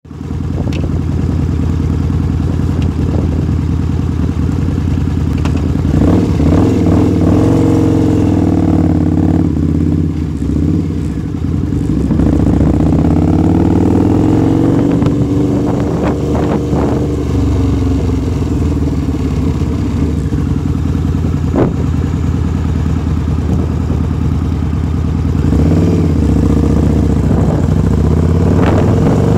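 Harley-Davidson V-Rod's V-twin engine, running loud through a TAB slash-cut exhaust with the baffles removed, while the bike is ridden. The engine note climbs and drops several times as it accelerates and eases off.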